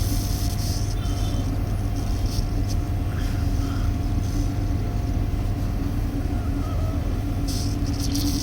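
Air conditioner running with a steady mechanical hum, a low drone with a thin steady tone above it.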